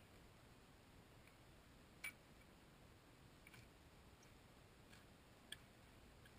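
Near silence, with a few faint, sharp clicks from a spade being driven into the soil of a ditch; the loudest comes about two seconds in.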